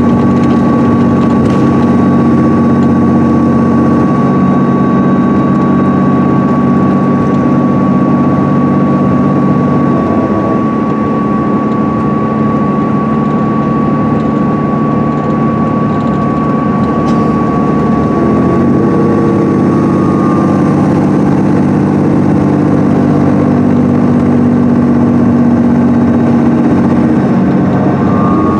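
Cummins ISM inline-six diesel and Allison B500R automatic transmission of a 2010 MCI D4500CL coach running steadily at speed, heard from inside the passenger cabin, with a thin high whine above the engine note. The engine note drops about ten seconds in and rises again a few seconds before the end.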